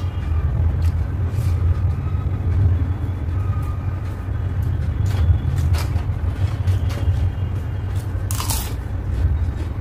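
Close-up eating sounds: wet chewing and mouth clicks of rice and curry eaten by hand, then a crisp crunch as fried papad is bitten near the end. A steady low rumble runs underneath.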